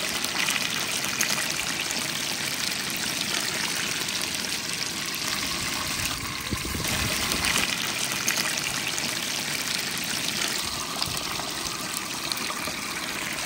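Breaded chicken pieces deep-frying in hot oil, a steady dense sizzle and crackle that dips briefly about halfway through.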